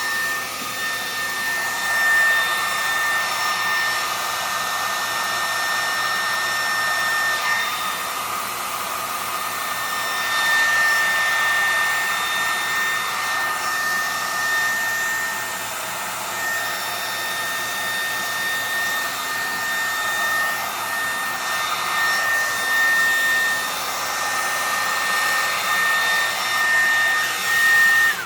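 Hair dryer running, blowing air across wet alcohol ink on a painting board, with a steady high whine over the rush of air; the loudness wavers a little as it is moved, and it cuts off abruptly at the end.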